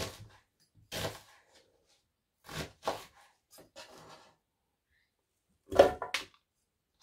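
Chef's knife cutting half an onion on a cutting board: a handful of separate cuts, a second or so apart. Near the end the blade knocks twice against the blender jar as the chopped onion is scraped in, the loudest sounds.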